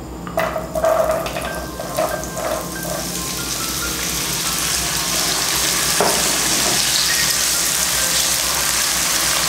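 Diced raw potatoes tipped into hot oil in a nonstick wok, landing with a few knocks, then sizzling as they fry; the hiss builds over the first few seconds and holds steady.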